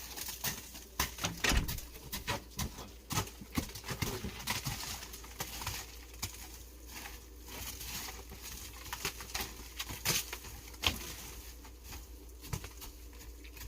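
Freezing rain (sleet) pattering: many irregular sharp ticks, several a second, over a faint hiss.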